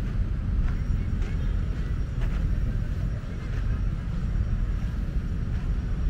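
Outdoor ambience: a steady low rumble with a few light ticks scattered through it.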